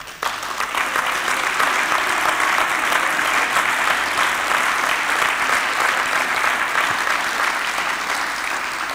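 Large audience applauding: a dense, even patter of many hands clapping that starts just after a speech pauses and begins to die away near the end.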